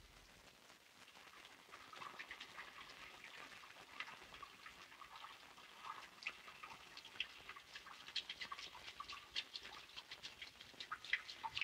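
Faint trickling and splashing of water in a bathroom washbasin: many small, irregular drips and splashes. It starts very quiet and grows busier after about two seconds.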